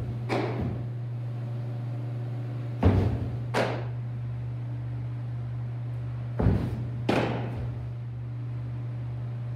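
Baseball pitches thrown off a portable pitching mound, heard three times as a pair of sharp impacts about 0.7 seconds apart: the stride foot landing hard on the mound, then the ball striking its target. A steady low electrical hum runs underneath.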